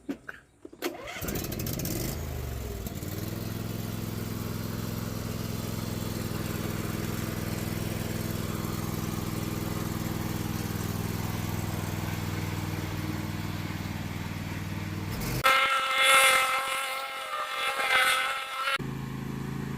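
John Deere D130 ride-on mower engine starting about a second in, its pitch rising as it comes up to speed, then running steadily for a test drive. Near the end the engine sound breaks off for about three seconds of a louder, higher-pitched wavering sound, after which the engine is heard again at a lower pitch.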